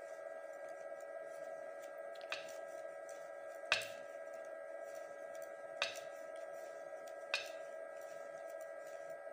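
Knitting needles clicking against each other four times, spaced a second and a half to two seconds apart, the second click the loudest, as stitches are worked in wool. Under it runs a steady hum.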